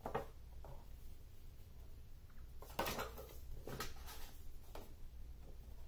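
Quiet room tone with a steady low hum, broken by a few faint, short handling sounds like soft taps or rustles, the loudest a little under three seconds in.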